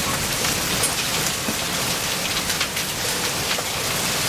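Hail storm pelting down: a dense, steady clatter of hailstones and rain, with many sharp clicks of individual stones striking.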